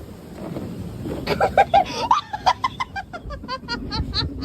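Laughter in quick repeated bursts, starting about a second in and growing faster and higher toward the end.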